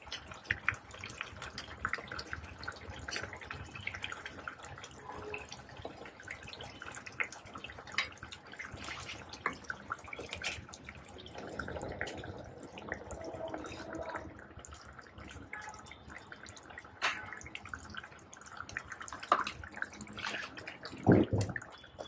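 Egg curry in a thin coconut-milk gravy simmering in a pan, the gravy bubbling with many small pops. Now and then a steel ladle and a wooden spoon scrape and knock in the pan as the eggs are turned.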